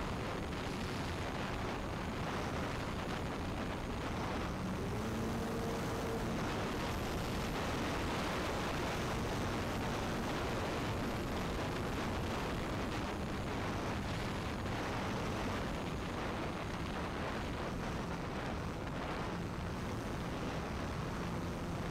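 Wind rushing over a wing-mounted camera on an E-flite Cessna 150 Carbon-Z RC plane in flight, with the hum of its electric motor and propeller shifting in pitch a few times underneath.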